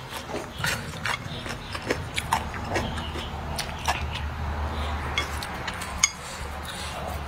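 A person chewing and smacking their lips on a mouthful of rice and braised pig's trotter, with wet mouth clicks, and wooden chopsticks tapping the bowl. A sharp click stands out about six seconds in.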